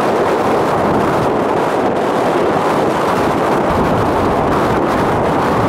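Strong wind buffeting the microphone: a loud, steady rushing noise with a fluttering low rumble.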